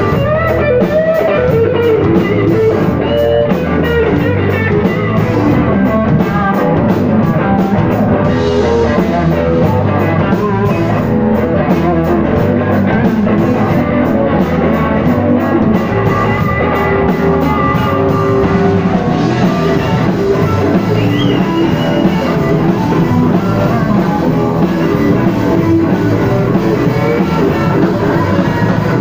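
A rock band playing live and loud: electric guitar, electric bass and a drum kit.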